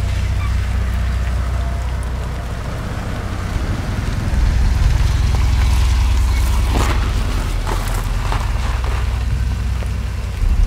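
A deep, steady rumble under a hiss of noise, with a cluster of sharp clicks and knocks about seven to nine seconds in: sound-design ambience of an audio drama.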